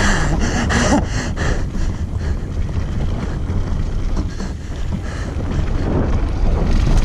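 Wind rushing over the camera microphone on a fast mountain-bike descent, with the tyres rolling over dirt and loose gravel and the bike rattling. A quick cluster of knocks comes in the first second or so.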